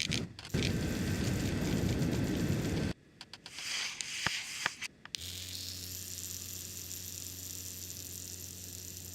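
Layered foley sound effects: a loud low rumbling noise for about two and a half seconds that cuts off sharply, a few sharp clicks, then a steady low electrical hum with hiss that slowly fades.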